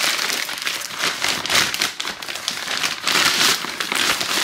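Crinkly packaging being handled and opened by hand: a dense, continuous stream of close crackles and rustles.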